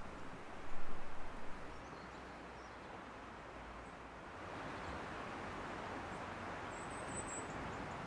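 Quiet woodland background: a steady even hiss with a brief louder rustle about a second in. Near the end comes a single short, very high-pitched small-bird call.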